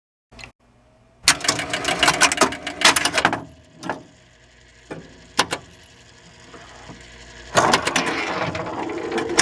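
Bursts of rapid mechanical clicking and clatter: a dense run of clicks about a second in, a few single clicks, then another run near the end.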